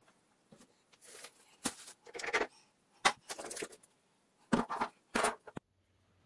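A series of short knocks and clatters from things being handled in a kitchen: a wall cupboard and a jar being taken out.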